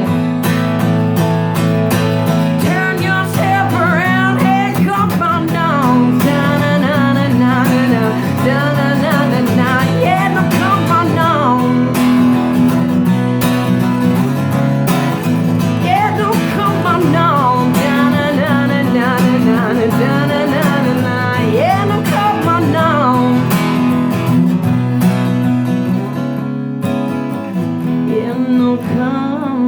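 Acoustic guitar strummed steadily while a solo voice sings two long melodic phrases over it, then the guitar carries on nearly alone for the last few seconds.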